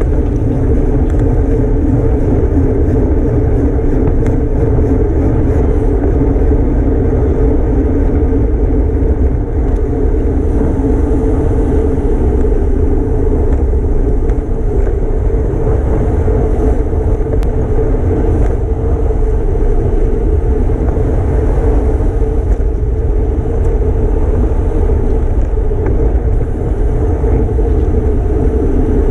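Wind rushing over a bicycle-mounted camera's microphone at racing speed: a loud, steady, deep rushing noise.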